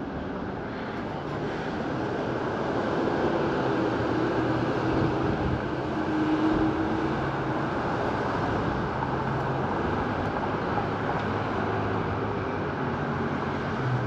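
Steady low mechanical rumble with faint hums, growing a little louder over the first few seconds and then holding.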